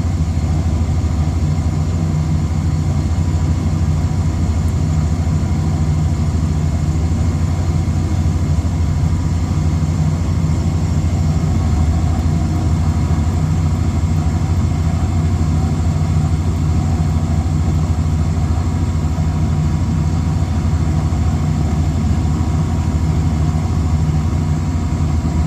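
Trane rooftop packaged air conditioner running: a loud, steady low hum from its motors and fans.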